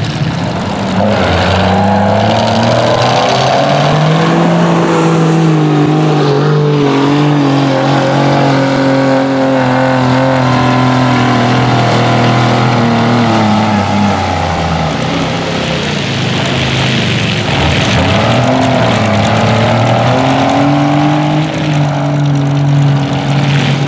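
Lifted diesel mud truck's engine revving hard as the truck churns through a mud pit. The revs climb, drop off about fourteen seconds in, then climb again and hold high near the end.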